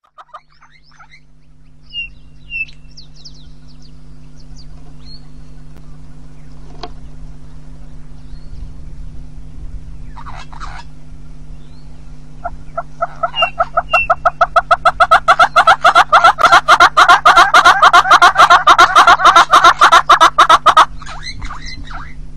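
Southern red-billed hornbill calling: a long rapid series of repeated notes that begins quietly about halfway through, quickens and swells to loud, then stops abruptly. A few faint small-bird chirps come before it.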